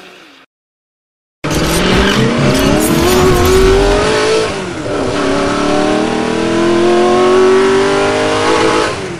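Tata Punch's 1.2-litre three-cylinder petrol engine accelerating hard, starting suddenly about a second and a half in. Its pitch climbs steadily, drops about four and a half seconds in as the gearbox shifts up, then climbs again.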